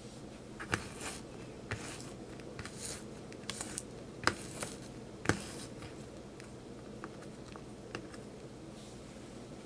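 Hands peeling and picking at the sticky backing and leftover sticker residue on a small stick-on heating pad: irregular scratchy rasps and sharp little clicks, the loudest a little under a second in and again at about four and five seconds.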